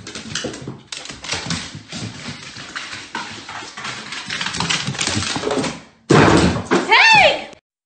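A dog's claws clicking and tapping irregularly on wooden stairs. Near the end comes a louder burst with one short high call that rises and falls.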